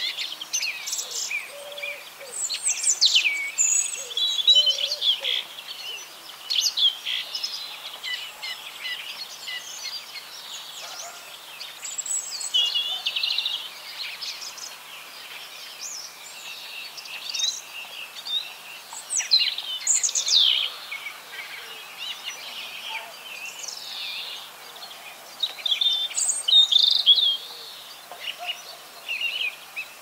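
Dawn chorus of several garden songbirds: overlapping songs and calls made of quick high phrases and downward-sweeping notes, with louder bursts every few seconds.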